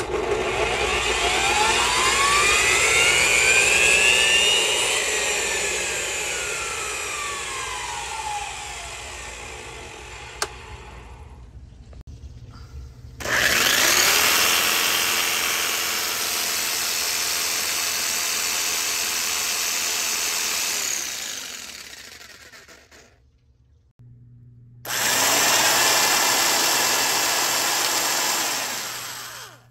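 Corded power tools run one after another off a 600 W portable power station. First a miter saw's motor whines up for about four seconds and then winds down as the station can barely power it. Next a scroll saw runs steadily with no load for about nine seconds and dies away, and near the end an old electric drill runs briefly, sounding kind of sad.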